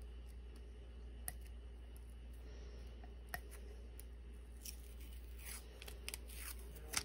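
Tape and transfer paper being peeled off a ceramic mug: faint rustling and crinkling, with a few sharp clicks, busier over the last couple of seconds.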